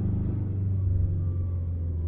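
Low, steady rumble of road and drivetrain noise inside the cabin of a moving 1999 Subaru Forester STB, easing off a little through these seconds.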